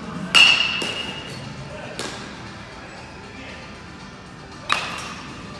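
Baseball bat hitting pitched balls twice, about four seconds apart: each hit is a sharp crack with a brief ringing tone, the first the loudest, followed by a few lighter knocks.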